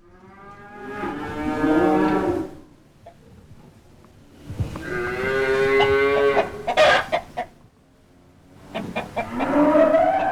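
Cows mooing in a cow barn, three long moos a few seconds apart, with a hen clucking in short sharp bursts after the second moo and again near the end.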